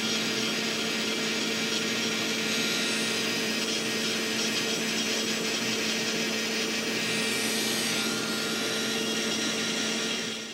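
Electric nail drill with a short, blunt, rounded flame-shaped diamond bit, running steadily while filing a nail: a constant motor hum with a grinding hiss, cutting off near the end.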